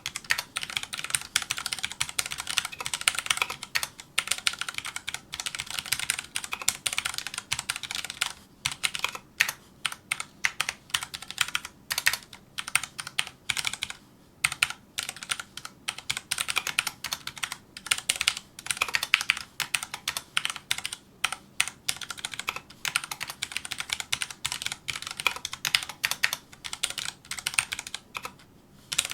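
Fast continuous typing on a Filco Majestouch2 mechanical keyboard with Cherry MX Brown switches: a dense run of key clacks, with short pauses a few times.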